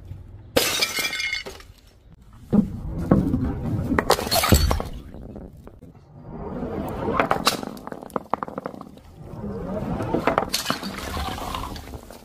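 Glass shattering as a heavy ball smashes a glass panel on tiles, with several more crashes and shards clinking. Later a ball rolls along a wooden board, and a second crash follows as a large bottle bursts and liquid splashes out.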